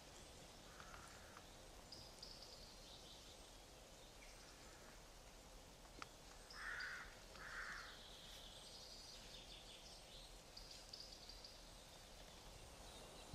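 Faint woodland ambience with small birds calling now and then in short high chirps. About seven and eight seconds in come two short, louder, rougher sounds, with a single click just before them.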